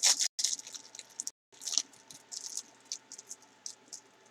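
Snack bar wrapper crinkling and crackling as it is torn open and handled, in quick irregular bursts that are busiest in the first two seconds and then thin out.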